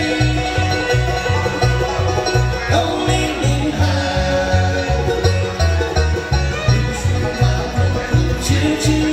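Live bluegrass band of fiddle, banjo, mandolin, acoustic guitar and upright bass playing. The bass keeps a steady beat under the picked strings.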